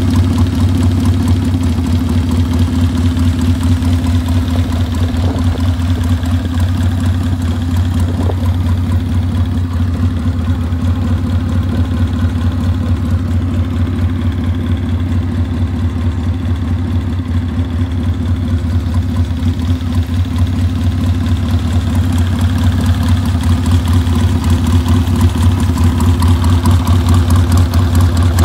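1939 Triumph Tiger 100's 500cc parallel-twin engine idling steadily, a little louder over the last few seconds.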